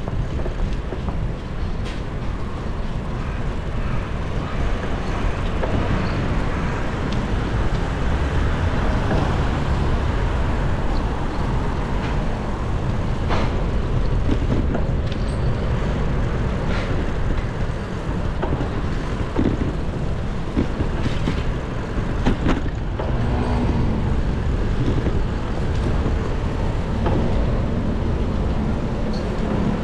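Wind rushing on the microphone and tyre and road noise of a bicycle ridden on wet streets, with motor traffic passing. Short clicks and knocks come scattered throughout.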